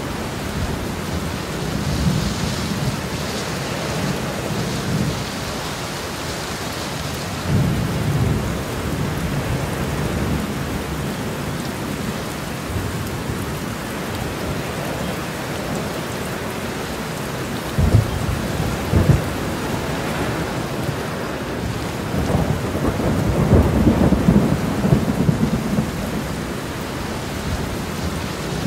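Steady heavy rain with thunder rumbling at intervals: a couple of sharper low claps a little past halfway and a long rolling rumble near the end.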